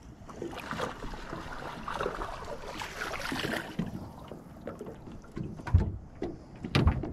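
Water splashing and lapping at a boat's side as a small bass is reeled in and lifted from the water, with two sharp knocks near the end.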